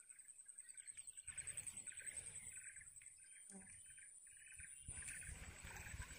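A bird chirping over and over, about two to three short calls a second, over a steady high-pitched insect drone. Low rumbling noise comes in about a second in and again around five seconds.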